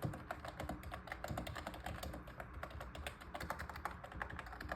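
Rapid typing on a MageGee TS91 membrane keyboard: a quiet, continuous run of key clicks, several a second.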